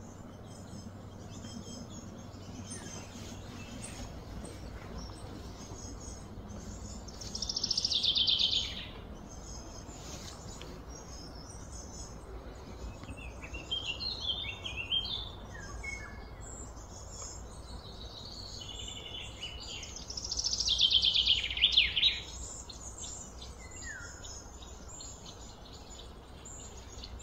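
Birds calling outdoors: scattered high chirps throughout, with two louder rapid trills, each falling in pitch and lasting about a second and a half, one about eight seconds in and another about twenty-one seconds in. A steady low background rumble runs underneath.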